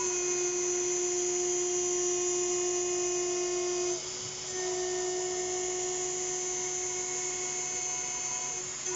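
6040 CNC router's spindle milling aluminium: a steady, high, multi-toned whine over cutting noise. It dips briefly about four seconds in and shifts again near the end, as the cutter's load changes.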